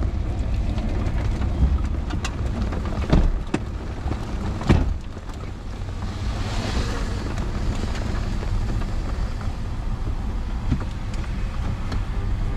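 Steady low wind rumble on the microphone outdoors in storm conditions, with a few sharp knocks about three to five seconds in and a brief swell of hiss about halfway through.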